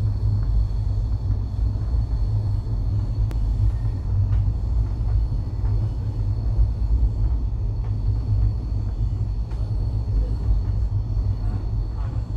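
Steady low rumble of a moving train heard from inside a passenger coach, with a few faint clicks here and there.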